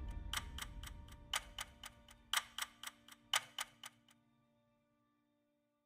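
Closing background music: clock-like ticking, about four ticks a second with a stronger tick every second, over soft held notes, fading out and stopping about four seconds in.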